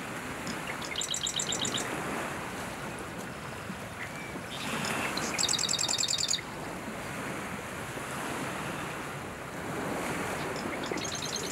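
Male marsh wren singing: three short, rapid rattling trills, each about a second long and spaced four to five seconds apart. The middle trill is the loudest, and the last one begins near the end.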